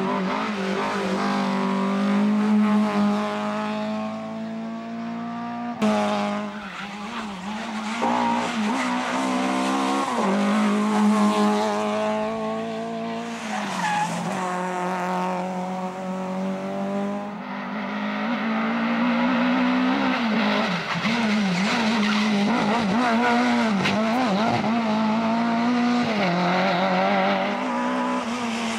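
Engines of classic Lada saloon rally cars at high revs as they pass at speed, pitch rising through each gear and dropping at the changes, in several passes one after another.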